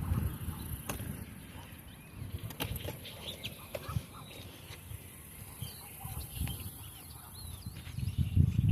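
Faint bird calls, a few short chirps, over low rumbling that comes and goes, with scattered clicks.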